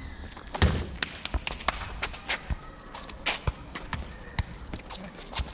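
A football struck again and again during a teqball rally: irregular sharp thuds of kicks, headers and bounces off the curved table and the asphalt, with the loudest hit about half a second in.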